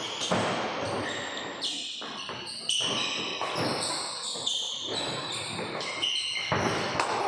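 Badminton rally: several sharp racket strikes on the shuttlecock, mixed with short high squeaks of court shoes on the wooden floor.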